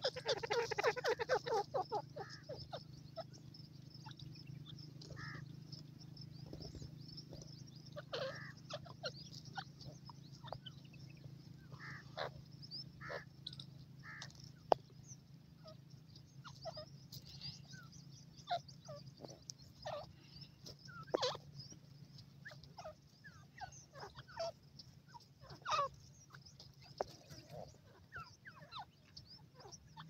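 Francolins calling: a quick chattering run of calls in the first two seconds, then scattered short chips and squeaks through the rest, over a faint steady low hum.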